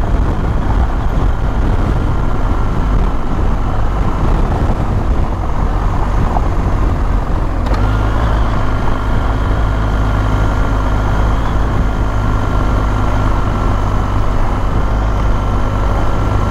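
Motorcycle riding on a dirt road: engine running under steady riding noise. About eight seconds in, the engine note changes to a stronger, steadier hum.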